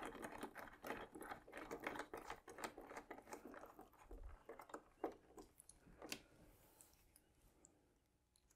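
Screwdriver tightening the wing-mounting screws of a foam RC model airplane: a run of faint, quick small clicks and ticks as the screw is turned, thinning out about six seconds in and dying away to near silence.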